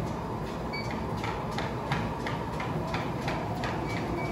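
Footfalls on two Life Fitness treadmill belts: steady, even thuds, about three or four a second, as two people walk and jog.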